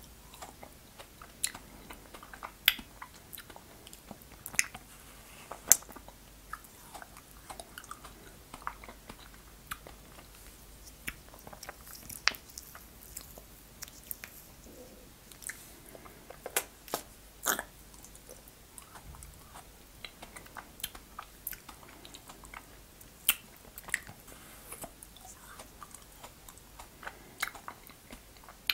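Biting and chewing a frozen fruit ice pop: irregular sharp crunches of ice between the teeth and chewing sounds, spaced out over the whole stretch.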